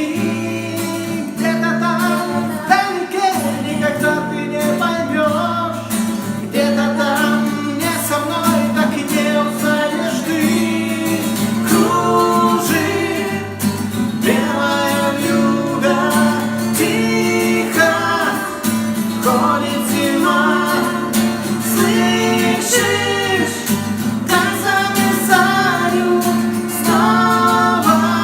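Song: a woman singing over an acoustic guitar.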